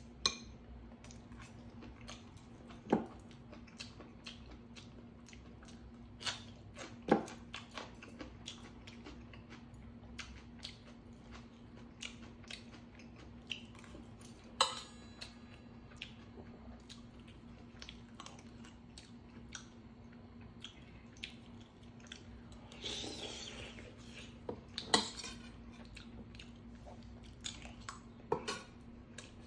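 Metal spoon and chopsticks clinking now and then against a stainless steel bowl and pan, with chewing between the clinks. A steady low hum runs underneath.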